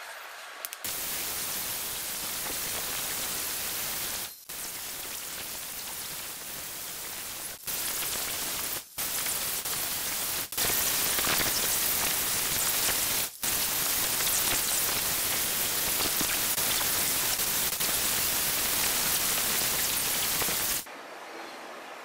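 Electric angle grinder with a buffing disc polishing an aluminium engine head cover, played back sped up so that it comes out as an even hiss. The hiss stops dead for an instant several times, at cuts, and ends about a second before the close.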